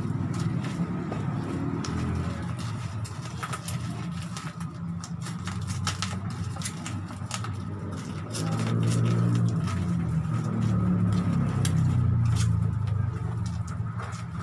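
A steady low engine rumble, growing louder for a few seconds past the middle and easing off near the end, with scattered sharp clicks and rustles throughout.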